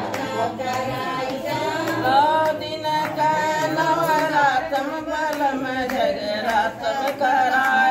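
Group of women singing a devotional song together, with hand-clapping keeping time.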